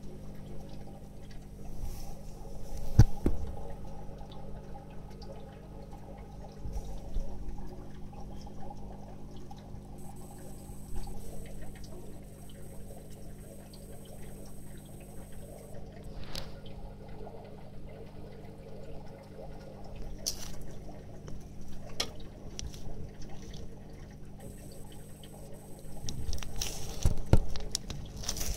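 Water trickling over a steady low hum, with a few sharp knocks, the loudest about three seconds in.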